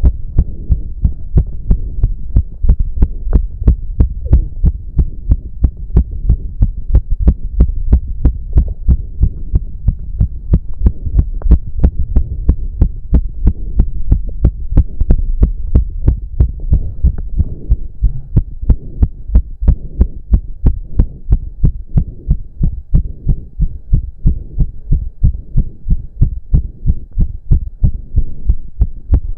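A man's heart pounding fast after intense cardio exercise: loud, regular beats at nearly three a second.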